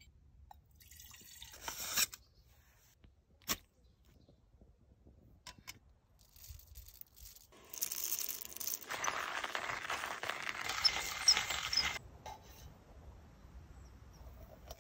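Hand-cranked manual coffee grinder grinding beans, a steady noisy grinding that runs for about four seconds in the second half. Before it, a few short knocks and a brief rustle.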